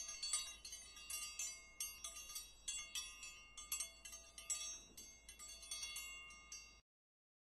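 Wind chimes tinkling: many high, bell-like strikes at an irregular pace, ringing over one another, then cutting off abruptly near the end.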